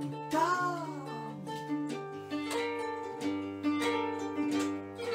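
Plucked strings of a large Ukrainian kobza-type lute playing an instrumental passage between sung lines, with repeated strummed strokes over held notes. A short sung note is heard near the start.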